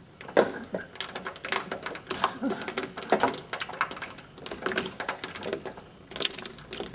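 Gloved hands squishing and scooping a thick, chunky fake-gore slurry in a galvanized metal bucket: irregular wet squelches and clicks, with scrapes against the metal.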